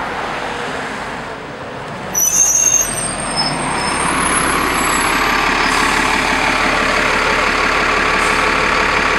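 Double-decker bus pulling in to a stop: a brief high brake squeal with a hiss about two seconds in, then the engine idling steadily at the stop.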